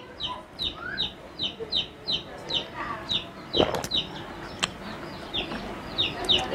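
A bird chirping over and over: short, high notes that slide downward, about three a second. A brief louder noise comes about three and a half seconds in.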